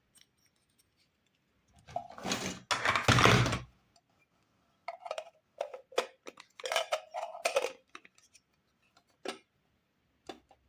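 Small plastic toy kitchen pieces being handled and set down. There is a loud burst of rattling handling noise about two seconds in, then a run of clicks and light clatters, and a couple of single clicks near the end.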